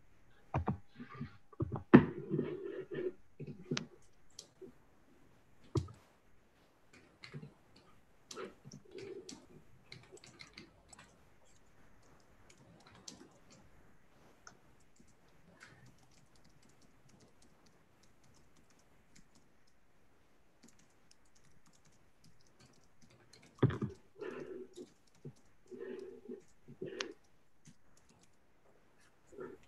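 Computer keyboard typing and clicking picked up by an open microphone on a video call, in irregular spurts with a quieter stretch in the middle, plus a few louder dull knocks about two seconds in and near the end.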